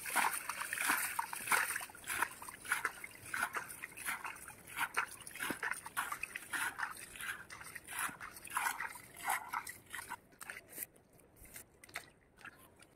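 Shallow pond water sloshing and splashing in irregular bursts, as when the water is worked by hand. It thins out near the end.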